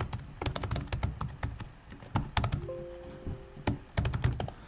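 Typing on a computer keyboard: an irregular run of keystroke clicks, with a pause of about a second around the middle before the clicks resume.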